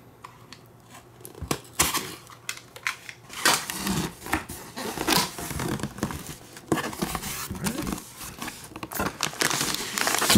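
Pillow packaging being opened by hand: irregular crinkling, rustling and tearing with small knocks from handling the box, starting about a second and a half in.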